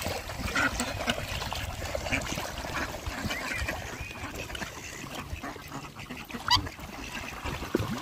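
Black swans, Eurasian coots and Pacific black ducks jostling for food in the water: scattered short calls over splashing and dabbling. One loud, sharp sound stands out about six and a half seconds in.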